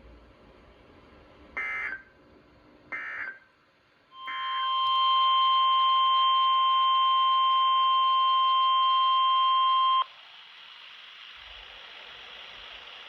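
NOAA Weather Radio alert signalling: two short bursts of the SAME digital header data, then the steady 1050 Hz warning alarm tone for about six seconds, cutting off sharply; this tone marks a warning, here a flash flood warning. Radio static hiss follows the tone.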